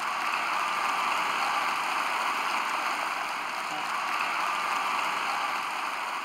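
Large audience applauding: dense, steady clapping from a packed auditorium.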